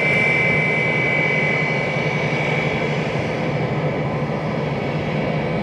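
McDonnell Douglas MD-90-30's rear-mounted IAE V2500 turbofans running at taxi power: a steady jet rush with a high whine that fades after about three seconds.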